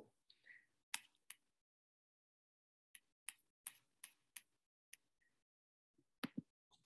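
Near silence broken by about ten faint, short clicks, scattered unevenly, with a small cluster near the middle.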